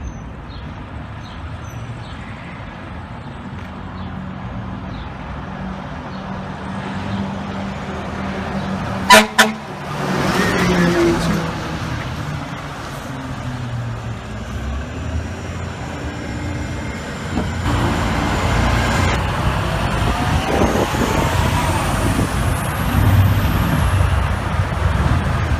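Fire truck air horn giving two short, very loud toots about nine seconds in, over steady city traffic and a heavy truck engine going by.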